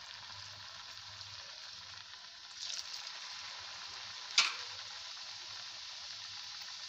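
Hot oil sizzling steadily in a kadhai on low heat. The sizzle swells briefly about two and a half seconds in, and there is a single sharp tap a little after four seconds.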